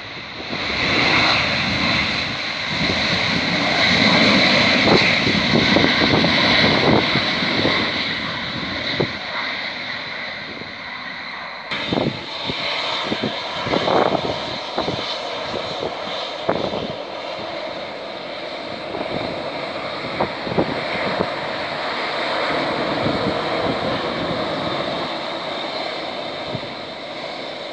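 Boeing 737-800's CFM56 turbofan engines running loud as the airliner rolls out on the runway after touchdown, the noise dying away over several seconds. Then comes the quieter, steady whine of the engines at taxi power.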